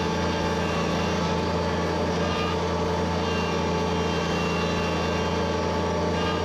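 Wheel loader's diesel engine running steadily at an even pitch.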